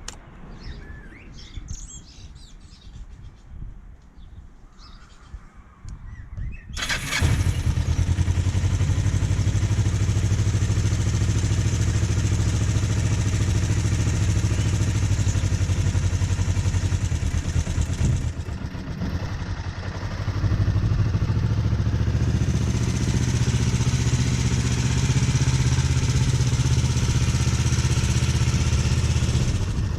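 Birds chirping, then a 1997 Kawasaki ER-5's parallel-twin engine is cold-started through its stock exhaust about seven seconds in. It settles into a steady idle, dips for a couple of seconds just past the middle, then runs steady again.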